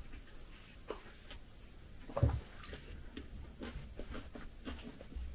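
A mug set down on a table with a dull knock about two seconds in, among faint scattered clicks and crinkles of hands handling wrapped sweets in a glass bowl.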